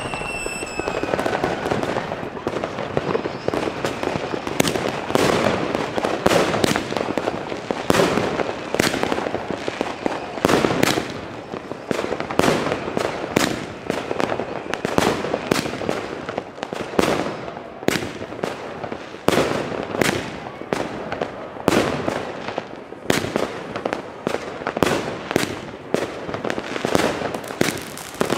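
Firework cake (a multi-shot battery) firing shot after shot: sharp reports about one to two a second over a constant hiss and rush from the rising comets and their bursts.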